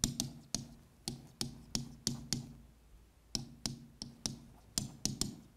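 Pen tip tapping against the board as a word is handwritten on it: a series of sharp taps, about three a second, with a pause of nearly a second around the middle.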